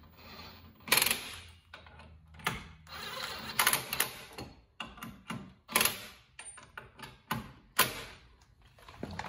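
Irregular metallic clicks and clinks of hand tools and hardware as bolts are snugged down on a brake caliper bracket at a car's front hub.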